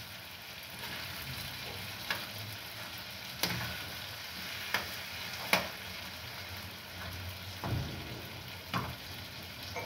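Cut sausages sizzling in a frying pan as a metal spoon stirs them, with a steady hiss and a few sharp clicks of the spoon against the pan.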